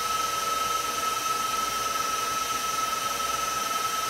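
KitchenAid stand mixer motor running steadily at speed 6, driving the pasta press that pushes dough through the large-macaroni die: a constant high whine over an even whirr.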